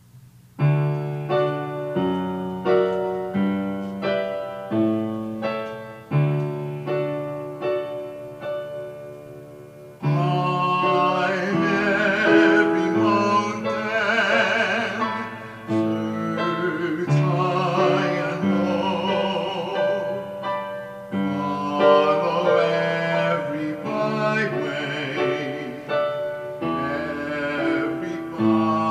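Solo piano introduction of separate chords. About ten seconds in, a man's voice enters, singing with vibrato over the piano accompaniment.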